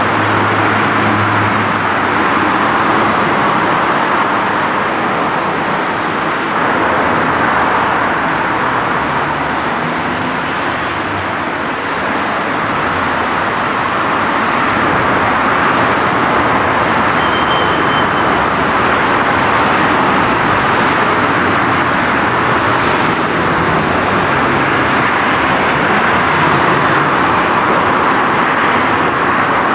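Steady road traffic noise, an even rushing hiss without breaks, with a faint brief high whistle about halfway through.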